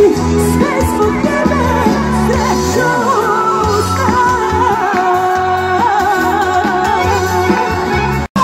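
Live Serbian pop-folk band playing with a woman singing, heard loud through a phone's microphone from within the crowd. The sound drops out for an instant near the end.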